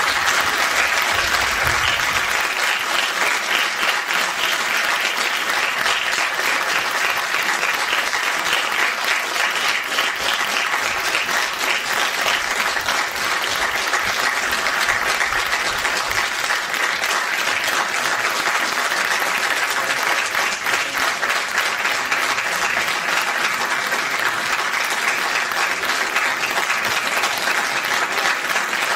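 Audience applauding, a dense, steady clapping that carries on without a break.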